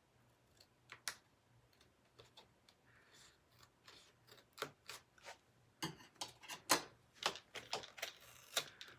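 A package being worked open by hand: a string of sharp clicks and crackles, sparse at first and then busier and louder in the second half.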